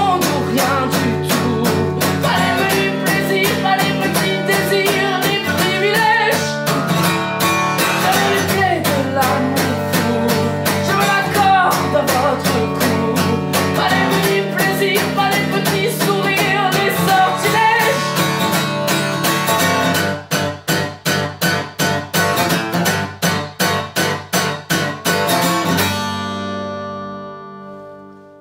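Steel-string acoustic guitar strummed under a man singing in French. In the last third the voice drops out and the guitar strums alone in an even rhythm, ending on a chord that rings out and fades away.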